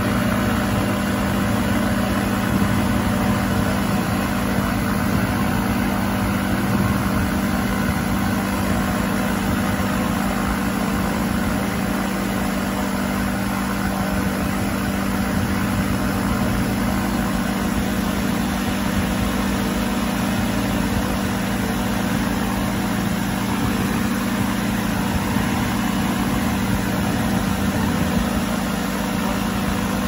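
Microlight trike's engine idling steadily, with no change in pitch, while the aircraft waits on the ground before take-off.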